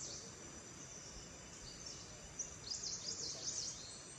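Forest ambience: a steady high insect drone, with a bird giving a quick run of rising-and-falling high chirps from about two and a half seconds in.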